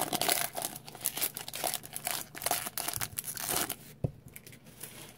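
Foil wrapper of a Pokémon TCG Fates Collide booster pack crinkling and tearing as it is pulled open by hand. The crinkling stops at about four seconds, just after a single soft knock.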